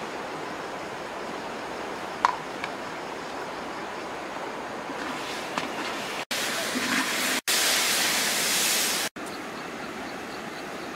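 Fish pieces sizzling and simmering in sauce in a large wok over a wood fire: a steady hiss, with a single sharp clink about two seconds in. The hiss is louder for a second or two past the middle, then drops back.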